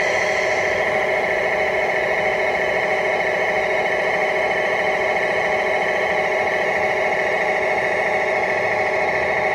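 Hydraulic pump of an RC model tipper semi-trailer running steadily as the tipper body lowers, a constant whine.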